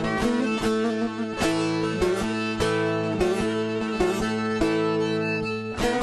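Instrumental passage of a Kurdish folk song: bağlama plucked and strummed, with a violin bowing the melody. Sharp plucked accents come at a steady pulse under held notes.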